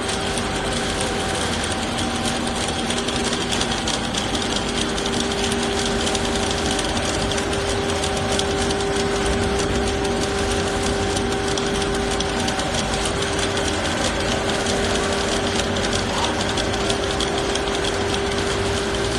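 Paper slitting machine for paper-cup stock running, unwinding a parent roll of white paper and rewinding it into narrower slit rolls. It makes a steady mechanical whir with a constant hum tone throughout.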